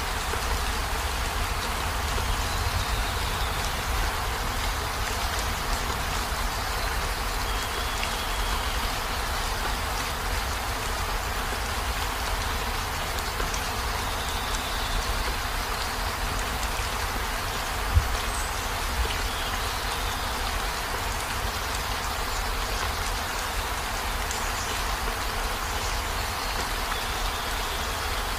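Steady heavy rain falling on a campervan's roof and windows, with a low rumble beneath it. A single sharp knock comes about two-thirds of the way through.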